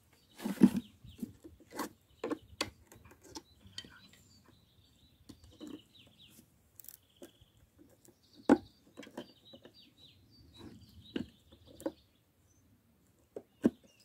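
Sharp knocks, clicks and a few loud cracks as metal hand tools, pincers among them, pry at the nailed-shut lid of an old wooden birdhouse. The loudest knock comes just after the start and another strong crack about eight seconds in. Small birds chirp faintly in the background.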